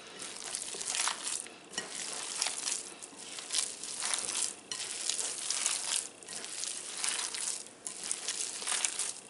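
Hands kneading raw ground bison and sausage meatloaf mixture in a glass bowl: a wet squishing that swells and fades in uneven surges as the meat is squeezed and turned.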